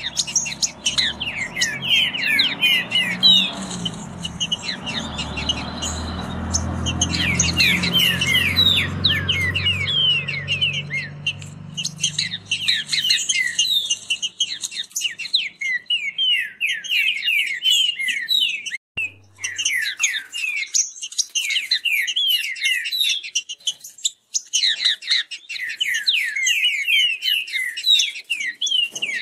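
Green-winged saltators (trinca-ferros) singing fast, rapid phrases overlapping as the birds sing against each other. A low rumble sits under the song for about the first twelve seconds.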